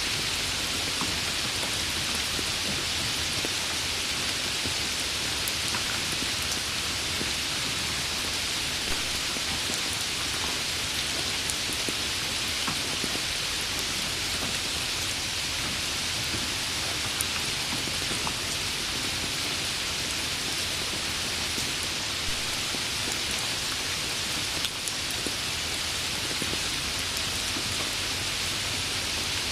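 Steady rain falling on a surface, a dense even hiss with scattered individual drop ticks.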